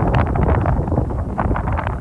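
Wind buffeting the microphone: a loud, irregular rumble with ragged crackling gusts.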